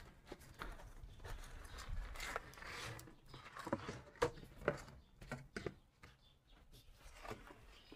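Faint handling noise of a staghorn fern being eased out of its pot: scattered rustles and small clicks from the pot, soil and fronds.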